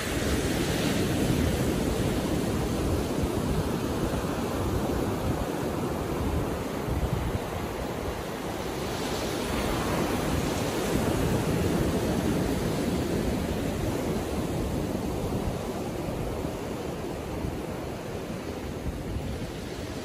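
Small ocean surf breaking on a sandy beach and washing up the shore: a continuous rushing wash that swells about a second in and again around ten seconds in.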